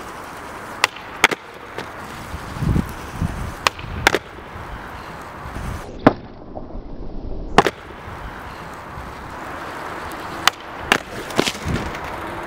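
Cruiser skateboard wheels rolling on asphalt, with sharp wooden clacks, mostly in pairs about half a second apart, as the tail pops and the board slaps back down during kickflip attempts.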